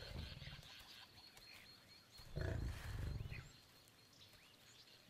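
Lion growling at a kill: a short deep rumble at the start, then a longer one about two and a half seconds in.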